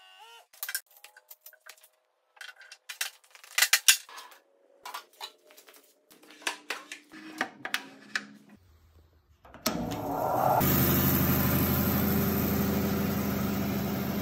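Scattered metal clanks and clicks of tools and parts during bandsaw assembly, then about ten seconds in a KING bandsaw motor is switched on and settles into a steady running hum with the blade turning.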